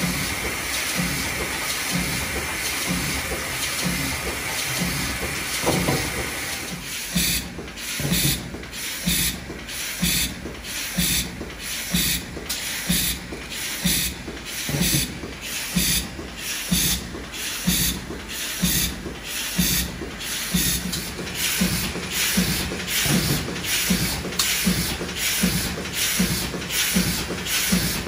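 GD33/12X automatic indexing cap-assembly machine running: a steady air hiss at first, then, from about seven seconds in, a regular clacking about twice a second as the machine cycles.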